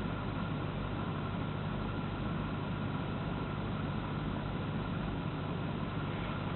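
Alpina engine idling with a misfire, its low beat uneven.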